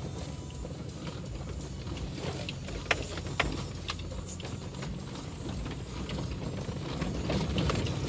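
Toyota Tundra pickup heard from inside the cab while driving slowly over a rough dirt track: a steady low engine and road rumble, with scattered clicks and rattles and two sharp knocks about three seconds in as the truck bounces over the ground.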